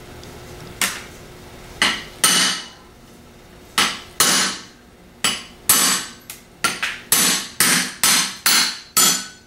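Hammer blows on a 3/4-inch socket used as a driver, knocking the drive-end bearing out of a CS144 alternator's aluminum drive-end housing, where the bearing is held by a rolled-over lip of the casting. About fifteen sharp metallic strikes, a few spaced apart at first, then coming steadily about two a second.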